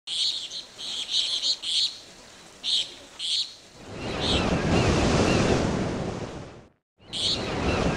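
Short, high chirps repeating for a few seconds, then a wash of surf-like noise that swells about four seconds in, fades and cuts off, before the chirps start again near the end.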